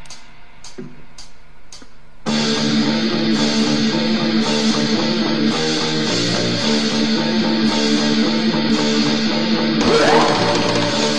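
Opening of a thrash metal song: four sharp, evenly spaced ticks over a quiet guitar note. About two seconds in, the full band comes in loud with electric guitars, bass and drums, and keeps going steadily.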